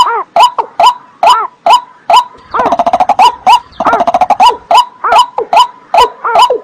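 Watercock calling in a loud, repeated series of short hollow notes, about three a second. About two and a half seconds in, a faster stuttering run of notes lasts a second and a half before the slower series resumes.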